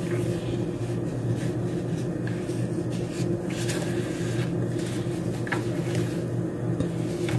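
Steady low machine hum, with a few faint paper rustles and clicks as the pages of a sticker book are turned and lifted.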